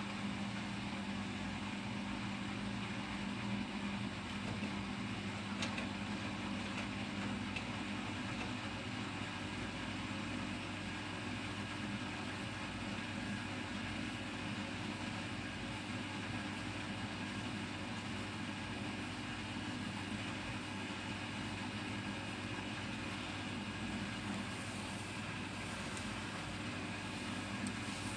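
Bosch Serie 6 front-loading washing machine running steadily early in a 60° cotton wash, a constant motor hum under the noise of the turning drum.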